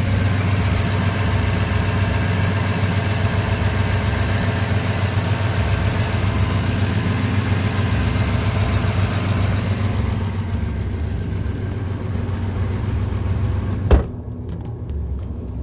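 1999 Jaguar XJ8's V8 engine idling steadily, newly fitted with a replacement A/C compressor. Near the end a single sharp knock, after which the sound turns quieter and duller.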